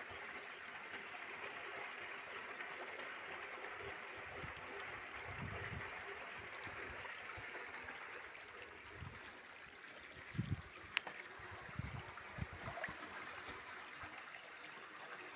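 Water pouring from an inlet hose into a fish-tank basin, a steady trickling splash. A few low thumps come in the middle and a sharp click about eleven seconds in.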